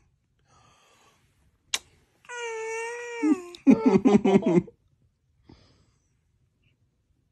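Baby cooing: one long, high-pitched vocal sound that drops in pitch at the end, followed by about a second of quick choppy laugh-like sounds. A single click comes just before.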